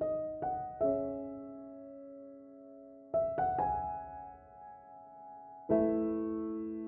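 Background piano music: small groups of struck notes a few seconds apart, each left to ring out and fade, with a fuller chord near the end.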